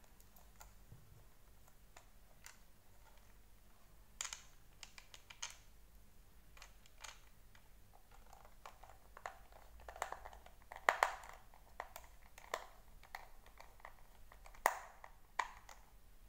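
Irregular plastic clicks and knocks from handling and pressing together the plastic housing of a Deerma VC25 handheld vacuum. They are sparse at first, come more often from about four seconds in, and are loudest about two-thirds of the way through.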